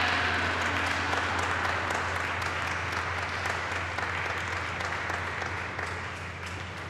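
Applause from a small group, tapering off gradually, with the low ring of a large struck gong lingering beneath it.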